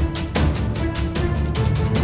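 Music with a steady beat: regular drum hits over a sustained bass line.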